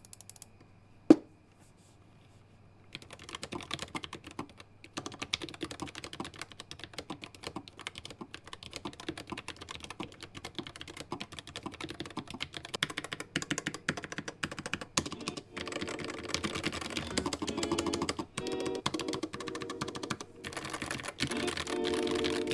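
Typing on a Neo Melo low-profile mechanical keyboard: a single key click about a second in, then fast, continuous clacking of the keys from about three seconds in.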